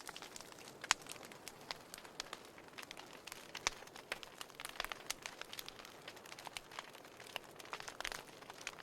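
Wood fire crackling in a fireplace: irregular sharp pops and snaps over a soft hiss, with a louder pop about a second in and another near four seconds.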